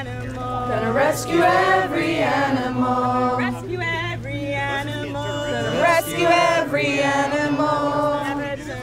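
A group of voices singing together, a slow melody with long held, wavering notes.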